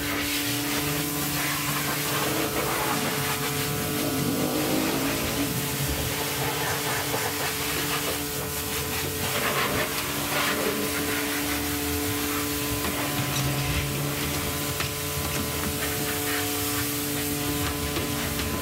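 A motor running steadily, a constant hum with a hiss over it.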